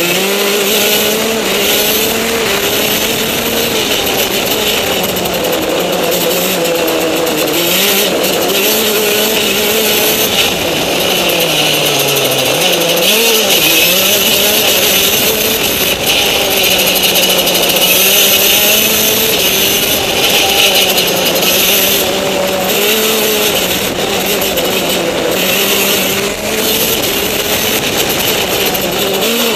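Racing go-kart engine heard from on board at speed, its pitch rising and falling with the throttle: it drops as the kart slows for a corner about twelve seconds in, then climbs again as it accelerates out. A steady rushing hiss runs underneath.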